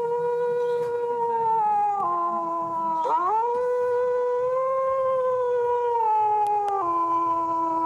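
Wolf howling: long, held howls that swoop up at the start, hold a steady pitch, then drop lower. One howl dips about two seconds in, and a new one rises about three seconds in and steps down again near the end.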